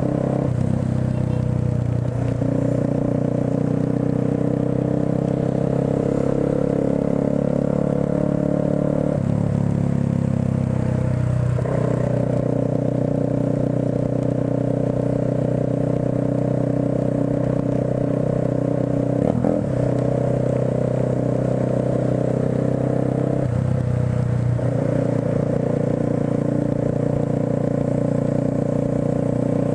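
Motorcycle engine running steadily while riding through traffic, its note changing with throttle a few times: around ten seconds in, briefly near twenty seconds and again around twenty-four seconds.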